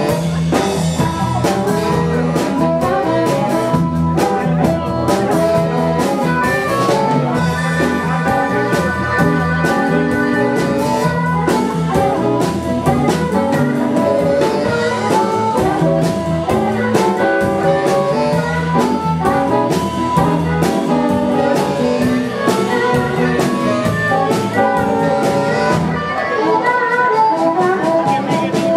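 Live blues band playing, with a saxophone carrying the lead melody over a drum kit, electric bass and guitar.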